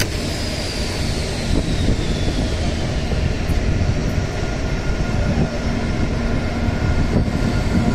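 Green CR200J Fuxing train pulling in along the platform, with a steady running rumble. A high whine falls in pitch over the first couple of seconds, and a few steady hums come in about five seconds in.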